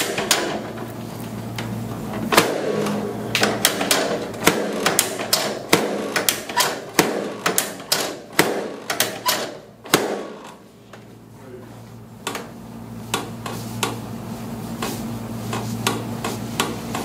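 A quick, irregular run of sharp knocks and clicks from chiropractic adjusting on a treatment table, about two to three a second, stopping about ten seconds in. After that comes a steady low hum with a few scattered clicks.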